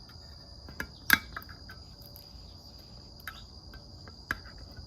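Sharp metallic clicks of a GOAT multitool's lever-style can opener biting into a tin can, a few scattered strokes with the loudest a little after a second in, over a steady high chirring of crickets.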